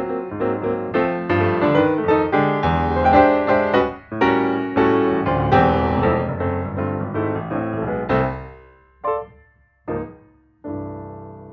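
Background piano music, a run of quick notes and chords that slows near the end into a few separate chords and a final held chord fading out.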